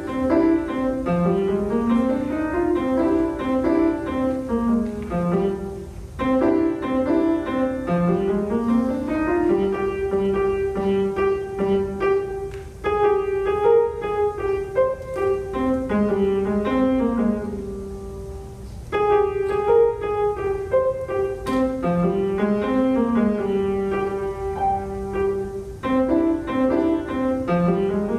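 Grand piano played solo: a piece built of short figures of notes that climb and fall, in phrases of a few seconds each, with brief breaks between them.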